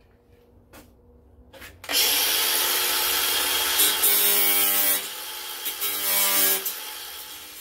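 An angle grinder starts about two seconds in and grinds down the metal staples of a plastic-weld repair in a plastic wheelbarrow tub. The grinding eases off briefly about halfway through, picks up again, then dies away near the end as the grinder winds down.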